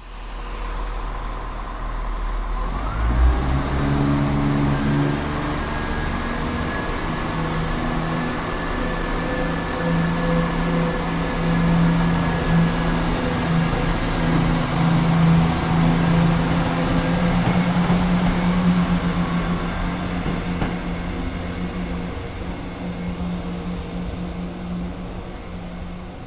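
Class 170 Turbostar diesel multiple unit pulling away: its underfloor diesel engines rise in pitch and strengthen about three seconds in, then hold a steady drone with a high whine above it, easing slightly near the end.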